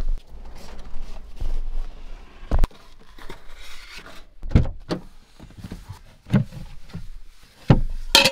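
Knocks and thuds of camp cooking gear being handled and set down: about five separate sharp knocks a second or two apart, the loudest near the end, with rustling and handling noise between.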